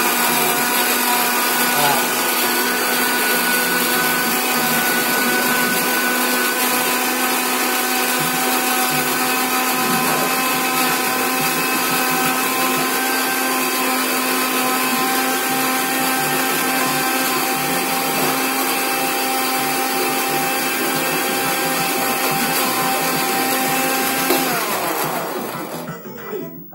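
Electric countertop blender running steadily at full speed, grinding papaya leaves and aloe vera. Its motor is switched off about two seconds before the end, and its pitch falls as it winds down.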